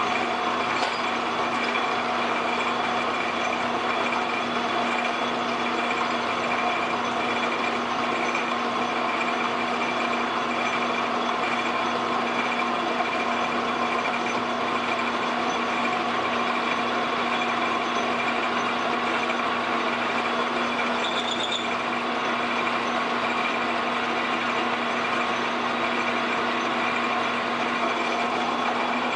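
Metal lathe running steadily with a whine from its motor and drive, the spindle turning a workpiece while a twist drill fed from the tailstock bores a pilot hole into it. A brief higher squeak about three quarters of the way through.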